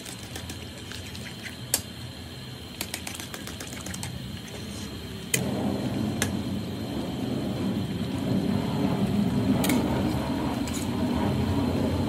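A metal spatula and ladle click and scrape against an aluminium wok. From about five seconds in, a louder, steady, rumbling hiss sets in that grows slowly: the tomato-and-egg sauce simmering with the fried mackerel over the burner.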